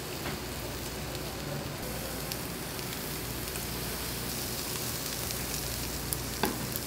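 Salt-grilled eel pieces sizzling steadily on a hot tabletop grill plate, with a couple of faint clicks near the end.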